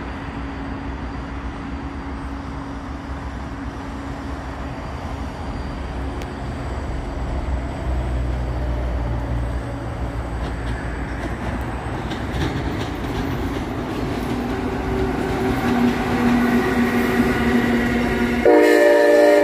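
Amtrak Northeast Regional passenger train approaching and passing: a low rumble of wheels on rail that grows steadily louder, then a loud multi-tone horn blast near the end.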